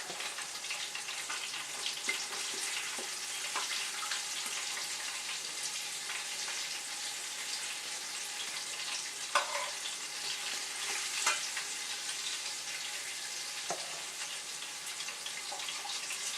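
Fish pieces frying in hot oil: a steady sizzle with fine crackling, broken by a few sharper clicks or taps, as of a utensil against the pan, about nine, eleven and fourteen seconds in.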